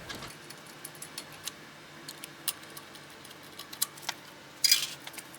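Lug nuts being threaded onto wheel studs by hand: scattered small metal clicks, with a louder metallic rattle near the end.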